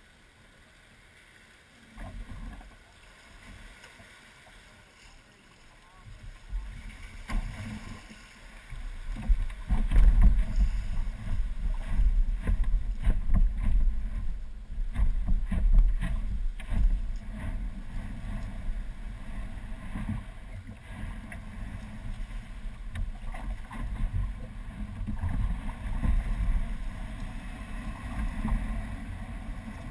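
Zego sports boat shifting off its trailer into shallow water: uneven low rumbling with many irregular knocks through the boat's frame. It starts about two seconds in and grows louder from about nine seconds.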